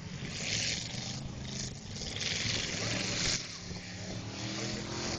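Demolition derby cars' engines running and revving in the arena, a steady low drone with two louder rushes of noise, about half a second in and again from about two seconds in.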